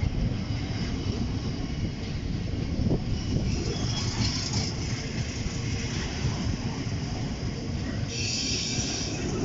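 A train running past on the rails with a steady low rumble, and two short high-pitched bursts, one about four seconds in and one near the end.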